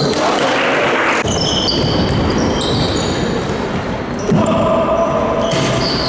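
Basketball game on an indoor court: the ball bouncing and sneakers squeaking on the floor in short high squeals, in a reverberant gym. A voice calls out about four seconds in.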